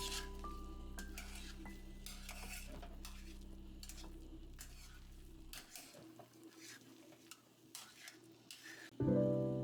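A spoon stirring and scraping in a cooking pot, with scattered clinks against the pot, while held background music notes fade out over the first half. Louder music comes in near the end.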